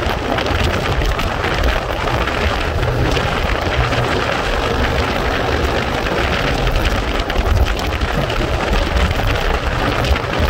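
Steady, loud wind rush buffeting the microphone on a motorcycle at highway speed, over a low road-and-engine rumble.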